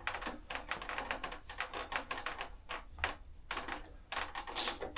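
Hand ratchet clicking in quick irregular runs as a bolt is tightened.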